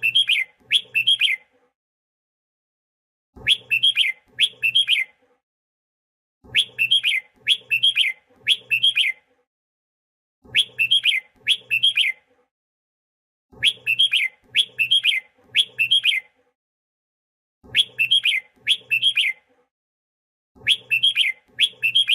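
Red-whiskered bulbul singing: short bursts of two to four quick, loud whistled phrases, repeated about every three to four seconds, with dead silence between bursts.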